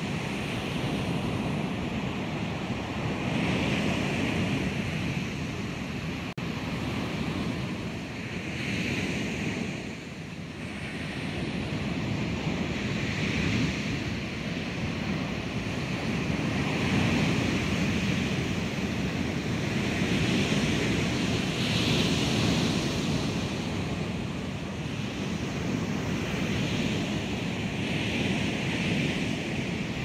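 Recorded ocean waves crashing on the shore: a continuous wash of surf, with a fresh wave breaking every few seconds. Separate wave samples overlap, each placed at its own position in 3D space.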